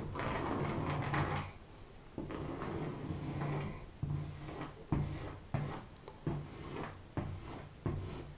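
Plastic caulk tube rubbed along a textured drywall ceiling seam, smoothing fresh caulk into the corner. Two longer scraping strokes, then a string of about six short strokes that each start sharply.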